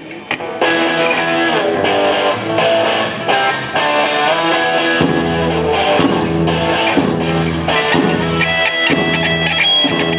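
Live rock band playing the opening of a hard rock song: strummed electric guitar chords start about half a second in, and a low bass part joins about halfway through.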